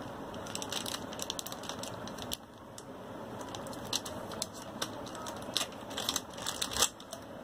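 Small plastic accessory bags crinkling and rustling in the hands, with irregular light clicks as the parts inside knock together.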